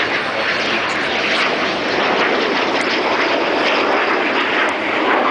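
Aircraft engine noise from a plane flying past, loud and steady.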